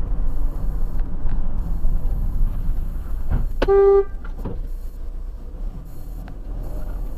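One short car horn blast, about halfway through, over the steady rumble of engine and road noise from a car driving.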